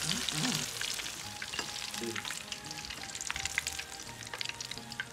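Battered alligator pieces deep-frying in hot oil in a carbon steel wok: a steady crackling sizzle dotted with small pops.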